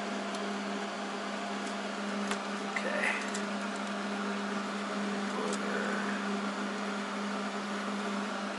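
Steady machine hum with one constant low tone, with a few light clicks and taps as a tape measure and steel pieces are handled on a wooden bench.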